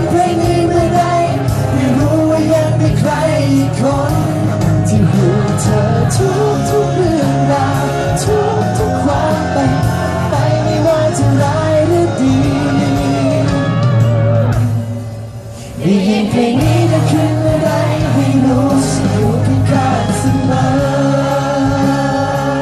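Male voices singing a Thai pop ballad live into handheld microphones over pop accompaniment. About two-thirds of the way through the music drops away for about a second, then the singing and accompaniment come back in.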